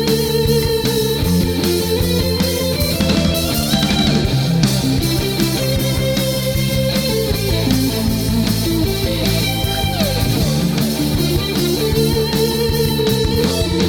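Rock music with distorted electric guitar and drums playing.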